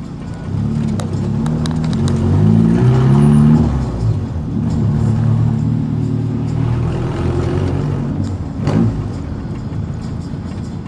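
Volkswagen Gol's engine and aftermarket JK exhaust muffler accelerating, its note climbing in short steps over the first few seconds and then running steadily. The exhaust is loud; a sharp knock comes near the end.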